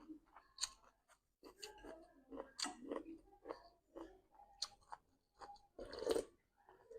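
A person chewing food close to the microphone: irregular soft crunches and wet mouth clicks.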